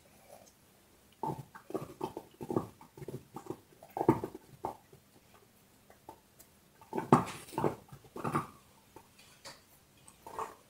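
Dog gnawing and crunching on a large bone, in irregular bursts of chewing that start about a second in, pause briefly in the middle, then pick up again.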